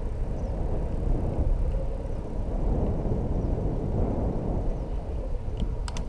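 Wind rumbling on the microphone of a camera carried on a moving bicycle, a steady low noise, with a few sharp clicks near the end.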